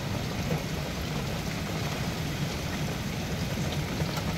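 Heavy rain pouring down steadily.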